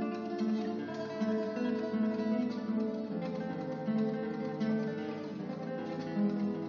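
Background music: an acoustic guitar playing plucked notes in a steady rhythm.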